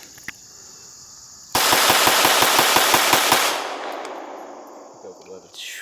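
Walther PPQ M2 .22 LR semi-automatic pistol fired as fast as the trigger allows: a quick string of about a dozen sharp shots in under two seconds, starting about a second and a half in. The echo fades away afterwards.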